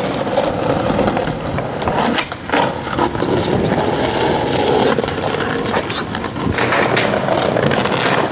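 Skateboard wheels rolling and scraping on concrete, with sharp clacks of the board from tricks here and there.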